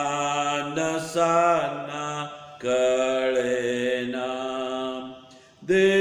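A man singing a Marathi hymn solo, in slow, long-held notes, with two breaks for breath between phrases.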